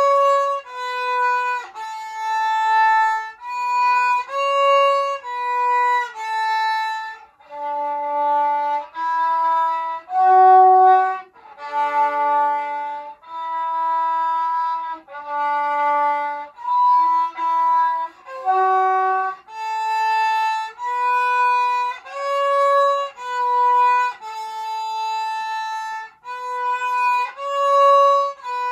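Solo violin played by a child: a simple melody of separate bowed notes, each about half a second to a second long with short breaks between. The tune drops to lower notes for a stretch in the middle, then climbs back.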